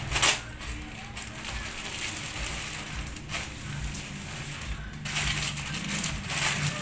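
Plastic courier mailer being torn open and rustled by hand, then a clear plastic garment bag crinkling as a shirt is drawn out of it. The rustling comes in irregular crackly bursts, busiest in the last couple of seconds.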